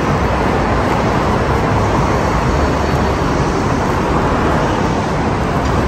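Steady outdoor street noise of road traffic and city ambience, with no distinct events.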